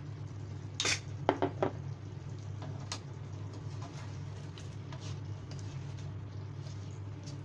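Spatula stirring chicken and potato pieces in a non-stick wok and scraping the pan. About a second in there is a short clatter, then three quick ringing taps against the pan. A steady low hum runs underneath.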